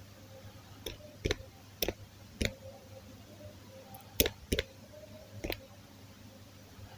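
Irregular, sharp key-press clicks, about seven of them, as a password is typed on a tablet's on-screen keyboard.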